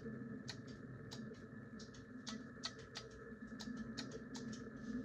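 A dozen or so light, sharp clicks at uneven spacing, over a faint steady hum.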